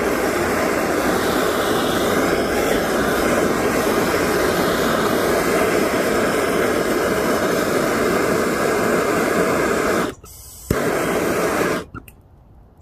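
Handheld gas torch flame burning with a loud, steady hiss while it heats a copper pipe fitting for soldering. It starts with a click, cuts out about ten seconds in, comes back with another sharp click for about a second, then stops.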